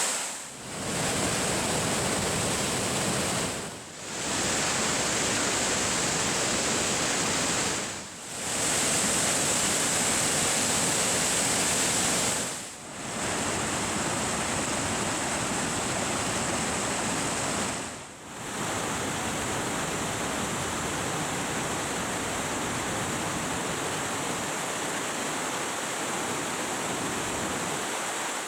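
Waterfall rushing, a steady, dense noise of falling water. It drops away briefly and comes straight back five times, about a second in, then near 4, 8, 13 and 18 seconds.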